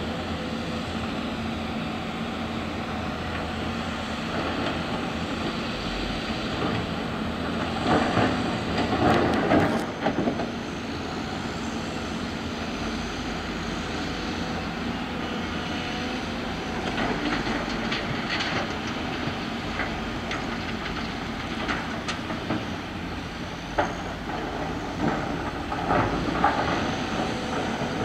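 Diesel excavators and dump trucks working: a steady engine drone with scattered metallic clanks and rattles of buckets, tracks and rock, loudest about eight to ten seconds in.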